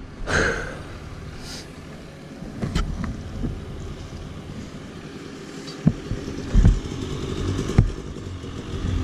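Dirt bike engines running steadily as a low rumble, with several sharp knocks and thumps, the loudest about six to eight seconds in.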